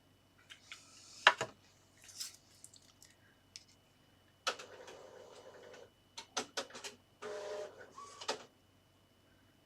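Small paper craft pieces and glue being handled on a desk: scattered light clicks and taps, with two short rustling, scraping stretches about halfway through and again a couple of seconds later.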